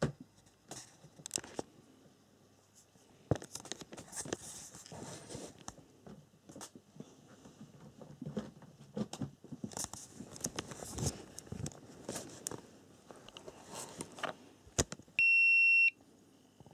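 Clicks and rustling from handling the SkyRC T100 charger, then one loud, steady electronic beep of under a second near the end as the charger powers up.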